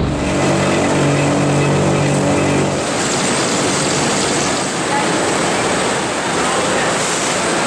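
Cotton spinning-mill machinery running, a loud steady industrial din. For the first three seconds or so it is a humming drone with several held tones, then it changes to a dense, even rushing clatter.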